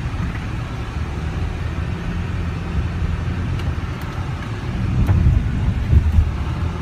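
Car interior road noise: a steady low rumble of engine and tyres while driving over a rough unpaved road, with a few louder bumps about five to six seconds in.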